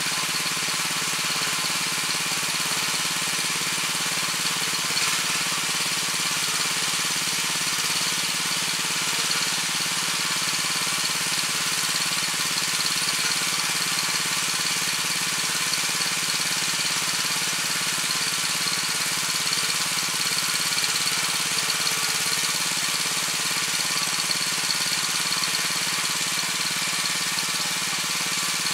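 Weima WM 900 tiller's 7 hp engine running steadily while the tiller works its rotary tines through the soil.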